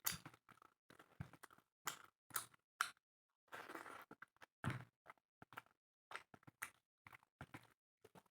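Close-miked eating sounds: chewing and mouth noises from someone eating spicy chicken with rice, coming as a string of short, irregular smacks with brief silent gaps between them.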